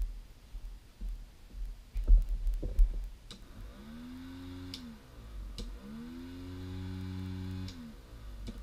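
Small Snap Circuits DC motor with a fan blade, run twice for about two seconds each: its hum rises in pitch as it spins up, holds steady, and falls away as it stops, with a few sharp clicks from the press switch. Low knocks of handling on the board come before it.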